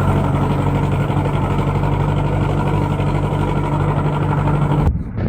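Engine of a farm vehicle used for spreading fertilizer, running at a steady speed with a constant deep hum. It cuts off abruptly near the end.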